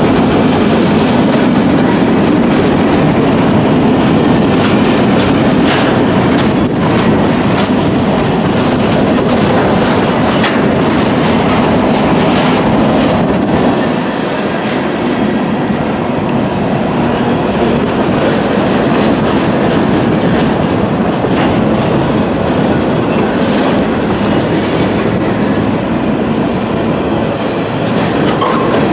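Freight train of covered hopper cars and boxcars rolling past close by: a loud, steady rumble of steel wheels on rail, with frequent clacks from the wheels.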